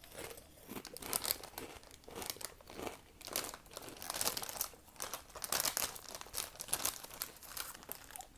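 Plastic chip bag crinkling in irregular crackles as it is handled, with some crunching of chips.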